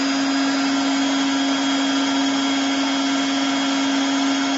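The blower motor of a TOP2000D hot air welding machine running steadily: a constant hum-whine over an even hiss of moving air.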